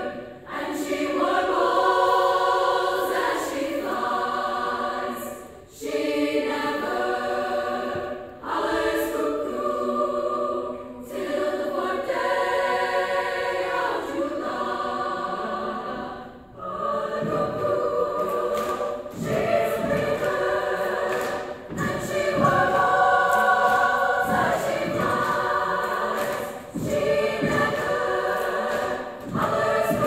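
Women's choir singing in several parts, in phrases broken by short pauses; from about halfway through, regular low beats keep time under the voices.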